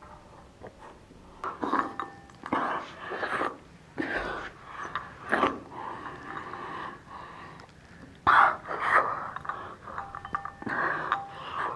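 A person's close-up breathing, sniffing and mouth noises, coming in irregular bursts.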